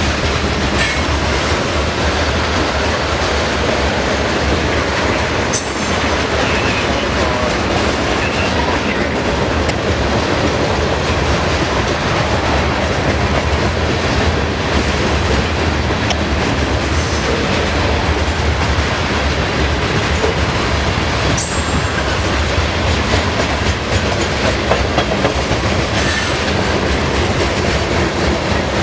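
Railroad cars rolling past at steady speed, steel wheels clacking over the rail joints with a few sharp clicks along the way.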